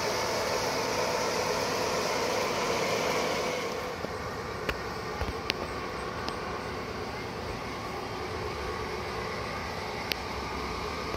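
G-scale model train running around the track: a steady mechanical running noise of the model MTH GE Dash 8-40C diesel with its onboard engine-sound system, and the cars rolling on the rails. The noise drops a little about four seconds in, and a few sharp clicks come after that.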